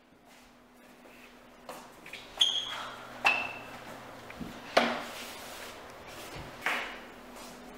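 A series of sharp knocks and clinks, one every second or two, two of them with a brief high ringing ping, over a low steady hum.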